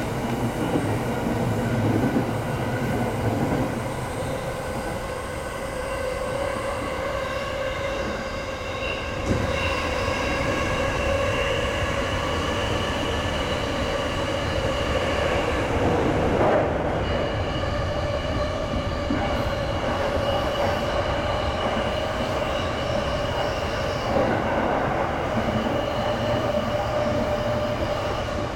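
E217 series electric train running at speed, heard from inside the driver's cab. A continuous rumble of wheels on rail carries a steady whine of several held tones, broken by a few brief knocks.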